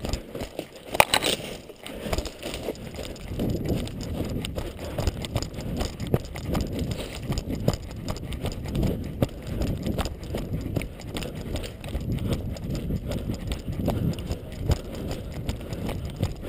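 Footsteps and rattling gear of a player moving along on foot, an uneven run of low knocks and rubbing, with one short sharp noise about a second in.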